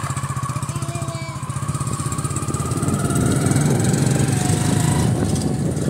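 Motorcycle engine running steadily while riding, louder from about halfway through.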